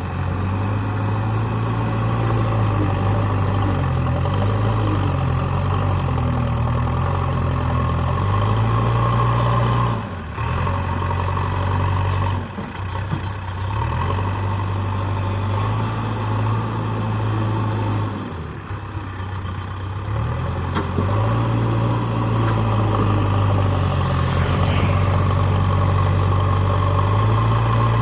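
JCB backhoe loader's diesel engine running under hydraulic load after a repair, its pitch rising and falling as the load changes, with brief drops in level a few times.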